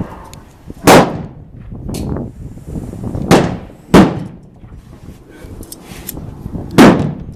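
Handgun shots, irregularly spaced: four loud shots, one about a second in, two close together around three and a half to four seconds, and one near the end, with a fainter shot about two seconds in.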